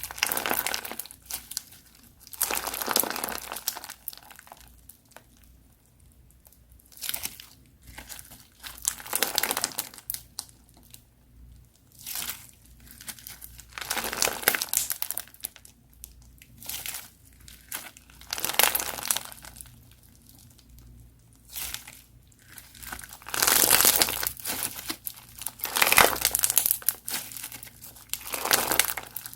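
Crunchy slime being squeezed and pressed by hand, crackling in repeated bursts every second or two with short quieter gaps between them.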